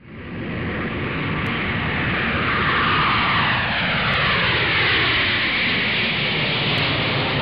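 Jet airliner flying over, its engine noise swelling in the first seconds, then holding loud while its whine slides down in pitch as it passes.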